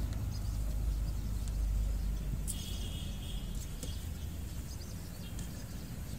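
A steady low outdoor rumble with a few light scrapes and clinks of a spoon stirring in a metal cooking pot, and a short high chirp about two and a half seconds in.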